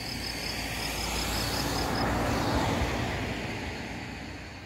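A vehicle passing by: its noise swells to a peak about halfway through and then fades away.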